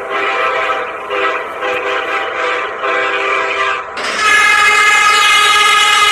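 Train air horn sounding a chord that wavers in level. About four seconds in, a louder, brighter horn chord starts abruptly and holds steady.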